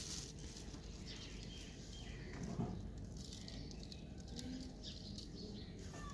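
Quiet background with a faint low hum and a few faint bird chirps.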